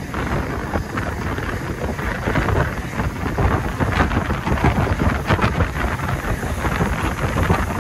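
Passenger train running at speed: a loud, steady rush of wind on the microphone over the rattling clatter of wheels and carriage.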